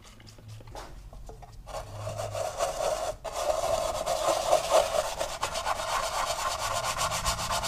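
Toothbrush-style brush scrubbing wet, foamy aluminum diamond plate in quick back-and-forth strokes, working road grime off the metal. The scrubbing starts about two seconds in and carries on, with one brief pause.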